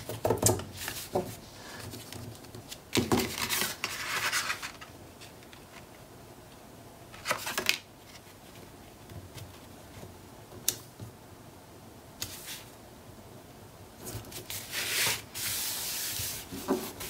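Paper and cardstock rustling and rubbing in several short bursts as patterned panels are slid into place and pressed flat by hand onto a glued page, the longest burst near the end.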